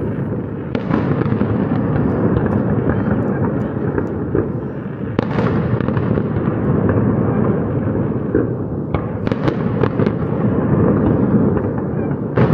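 Aerial fireworks display: a continuous barrage of booming shell bursts and crackle. Sharper bangs stand out about a second in, near the middle, and in a quick cluster around nine to ten seconds in.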